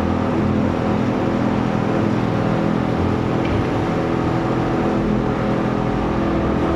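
Stalk shredding machine for corn, cotton and paddy stalks running steadily: a constant mechanical drone with a steady hum that does not change.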